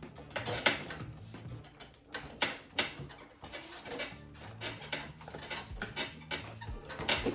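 Irregular clicks and clatter of small plastic and metal RC car parts and tools being handled, with background music playing underneath.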